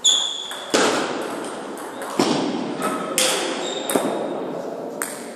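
Table tennis rally: the ball clicks off the paddles and the table about seven times at uneven intervals. Short high sneaker squeaks on the floor come right at the start and again around four seconds in.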